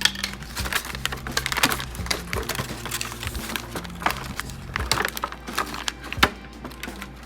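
Plastic packaging crinkling and crackling in irregular bursts as garment bags are pulled out of a doll box and handled, over steady background music.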